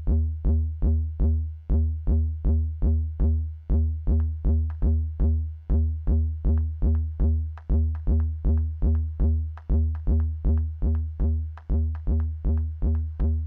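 Eurorack modular synthesizer playing a looping electronic percussion pattern: tuned drum hits about four a second over a steady deep bass, the pattern repeating every two seconds.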